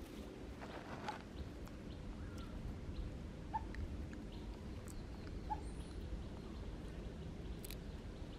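Low steady outdoor rumble with three short, faint animal squeaks about one, three and a half, and five and a half seconds in, and a few light clicks.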